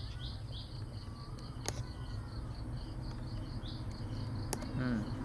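Cricket chirping steadily in the background, a high chirp repeated several times a second, over a low steady hum. A couple of faint clicks.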